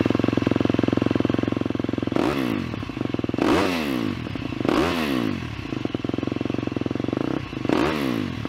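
Motocross bike engine running at idle, its throttle blipped four times in quick revs that rise and fall in pitch.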